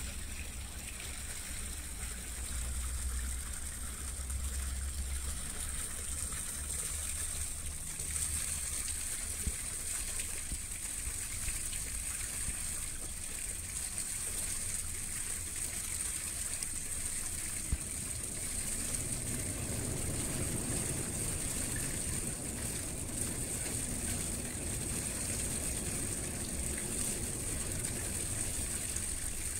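Water rushing and gushing along the hull of a large river tanker barge as it passes close by, over a low rumble that grows fuller about two-thirds of the way through.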